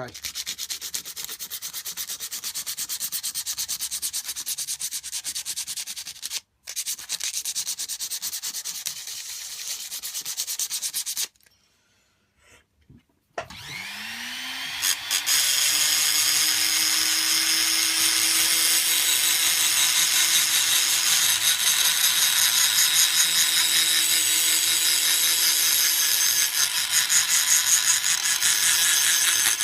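Coarse sandpaper rubbed by hand over a steel knife tang in quick strokes for about eleven seconds, with a short break partway, then a brief silence. A small rotary tool spins up with a rising whine that settles to a steady pitch, and its carbide burr grinds steadily on the tang, scratching it up so the glue keys in.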